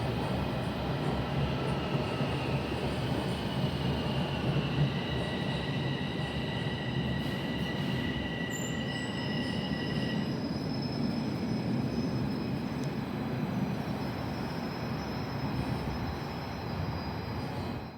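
A TTC rail train running on its tracks, with a steady rumble and a high wheel squeal that fades out about ten seconds in.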